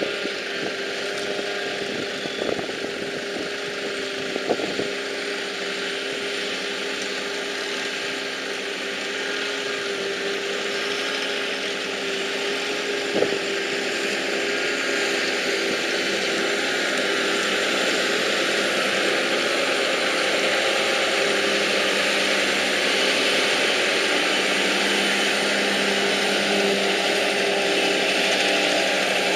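Silage-harvesting machinery engines running steadily, with a few short knocks in the first half. The sound grows a little louder about halfway through.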